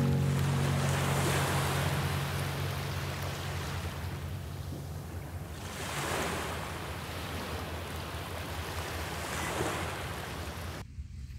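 Sea waves washing onto the shore, surging about every three to four seconds over a steady low wind rumble. The sound drops sharply near the end.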